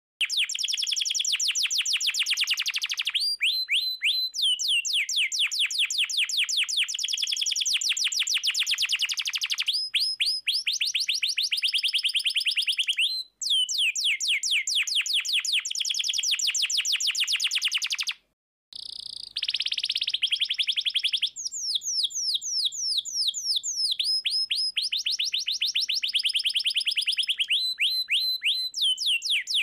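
Domestic canary singing long, fast rolling trills of rapidly repeated high notes, run after run, broken by two short gaps about 13 and 18 seconds in.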